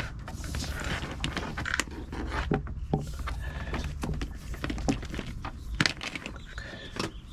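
Scattered small clicks and light knocks of wires and connectors being handled and moved about, over a steady low rumble.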